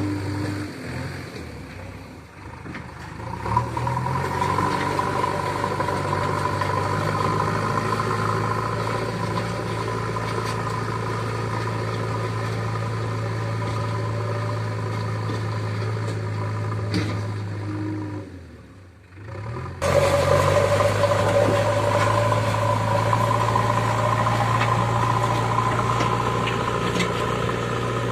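Diesel engine of a JCB backhoe loader running steadily under work. It drops away briefly about two-thirds of the way through, then comes back suddenly and louder.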